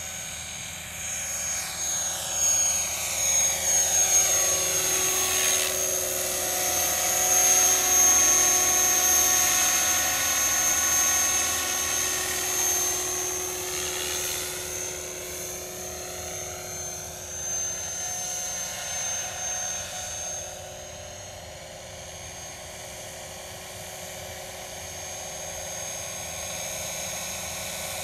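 Scale RC model MD 500D helicopter flying, with rotor noise and a steady high whine from the drive. The sound swells and swirls as it passes close and changes height, then drops back after about twenty seconds as it moves off.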